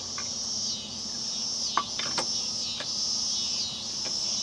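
A high-pitched chorus of insects chirring steadily, swelling and fading in a pulsing rhythm. A few sharp metal clinks come around the middle as the car's wheel is taken off.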